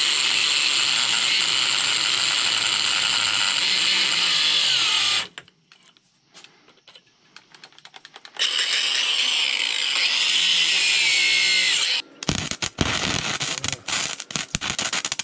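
A power tool running in two long spells, its pitch sliding up and down, with quiet scattered clicking between them. Near the end comes a fast, irregular run of knocks.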